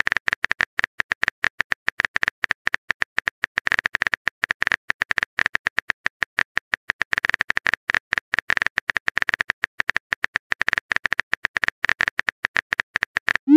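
Phone keyboard typing sound effect: a rapid, uneven stream of light key clicks, several a second, as a text message is typed out. A short rising whoosh starts at the very end.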